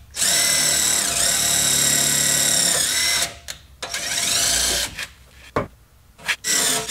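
Cordless DeWalt 18V impact driver spinning a Greenlee drill-tap combo bit, drilling and tapping screw holes in the sheet-metal panel: a long run of high motor whine that dips in pitch under load about a second in. A second run follows that rises in pitch as it spins up, then a few short bursts near the end.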